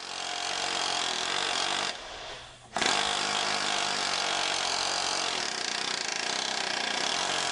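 Pneumatic air hammer with a ball joint remover driver hammering rapidly, driving a lower ball joint out of the steering knuckle. It runs for about two seconds, stops briefly, then starts again and keeps going.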